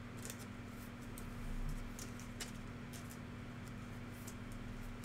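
Scattered light clicks and taps from trading cards and their packaging being handled on a table, over a steady low hum.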